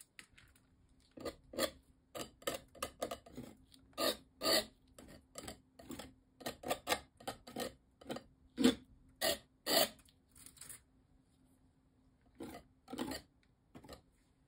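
Metal palette knife scraping and dabbing paint onto a textured canvas in quick, uneven short strokes, a pause near the end, then a few more strokes.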